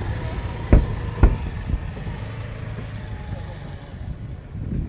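Aerial fireworks exploding: two sharp bursts about half a second apart near the start, then a fainter third, over a steady low rumble.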